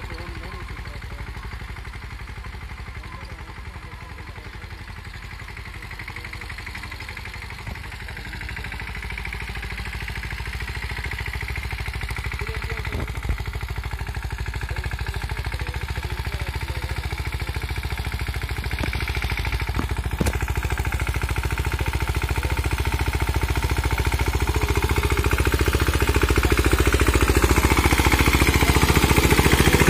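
Mahindra 215 compact tractor's single-cylinder diesel engine running steadily under load while its rotavator churns the soil. It grows steadily louder as the tractor comes closer.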